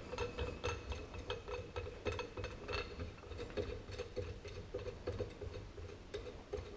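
Light, irregular metallic clicking and ticking, several times a second, from a clutch compression tool's cup and nut being spun by hand up its threaded rod off a UTV primary clutch whose spring tension has been released. A faint steady hum runs underneath.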